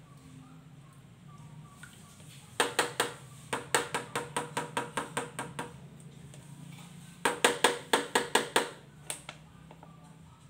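Plastic water bottle glugging in a bucket of fabric conditioner as liquid and air gulp through its neck: two runs of quick, even pops, the first about three seconds long, the second shorter and faster.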